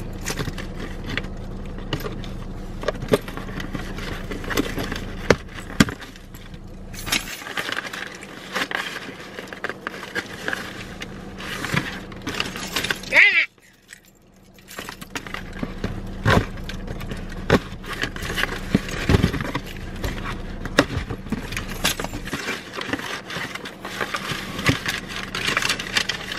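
A sneaker shipping package being torn and cut open by hand: a dense run of crinkles, rips and clicks of plastic and cardboard, with keys jangling as they are used on the tape. It breaks off briefly about halfway through.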